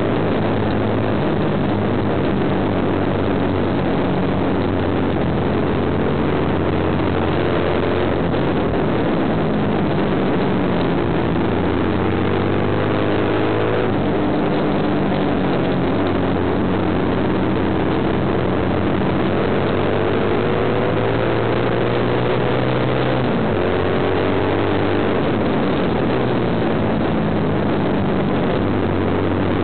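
Kawasaki KSR110's air-cooled single-cylinder four-stroke engine running hard on a track lap, heard from an onboard camera on the bike. Its pitch climbs, then drops several times as the rider eases off or shifts, over a steady rushing noise.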